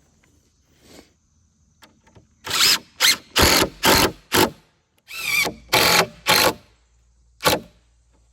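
A power tool run in short bursts: about eight quick pulses in a row, then a single one near the end.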